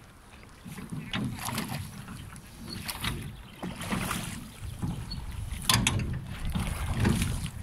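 Wooden oars of a small rowboat being pulled through lake water, splashing in several strokes about a second and a half apart, with wind rumbling on the microphone.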